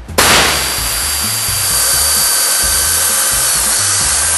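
Power ratchet running nylon-insert nuts down onto a personal watercraft's jet pump mounting studs: a steady, unbroken whirr that starts almost at once.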